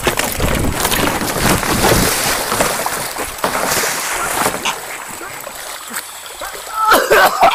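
A goose attacking a kayaker: loud splashing and wing-beating in a scuffle for the first couple of seconds, then water lapping around the kayak, and a goose honking near the end.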